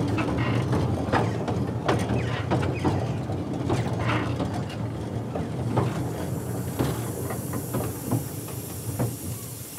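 Narrow-gauge steam locomotive clanking and rattling in the cab as it coasts with the regulator shut and the brake eased on. A hiss comes in about halfway and continues.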